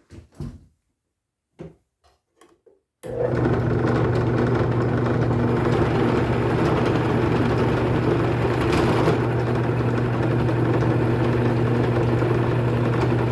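A drill press with a router bit in its chuck switches on about three seconds in, after a few faint clicks, and runs steadily with a strong even hum.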